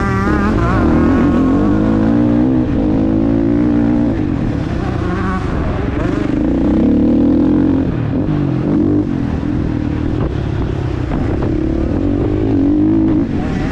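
Husqvarna FC 450's single-cylinder four-stroke engine ridden hard, the revs climbing and dropping again and again with throttle and gear changes, with a sharp drop in revs near the end.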